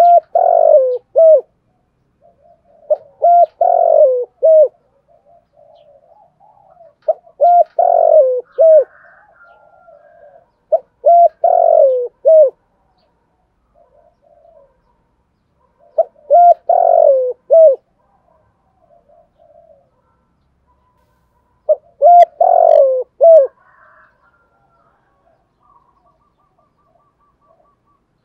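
Male spotted dove singing its cooing song phrase six times, every four to six seconds. Each phrase is a short run of deep, falling coos.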